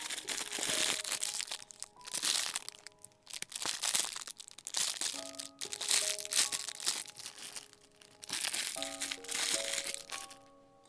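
Crinkling handling noise, like plastic wrapping being rustled, in several bursts of about a second each, over light background music of plucked notes.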